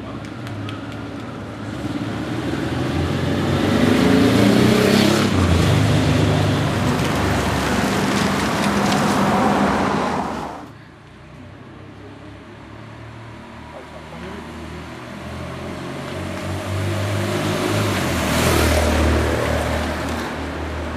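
Motor vehicles passing close on the race route, an escort motorcycle among them: engine noise grows louder to a peak about five seconds in and holds, then breaks off suddenly about ten and a half seconds in. A second vehicle builds up and passes near the end.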